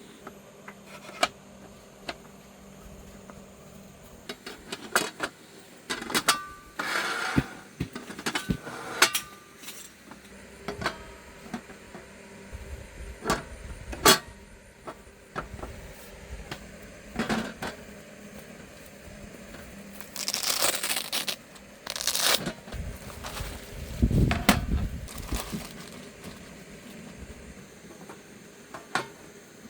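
Irregular clicks, knocks and clattering of objects being handled, with a few short scraping rustles about two-thirds of the way through and a dull thump soon after.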